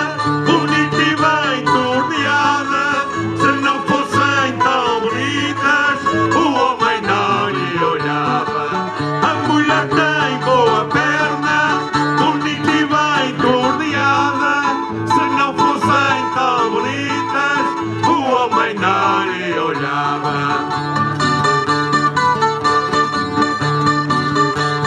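Acoustic folk music on plucked strings: guitars playing a tune with a bright, wavering melody line over a steady bass.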